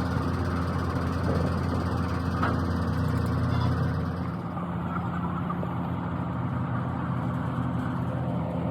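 An engine running steadily, with a steady low hum, easing off slightly about halfway through.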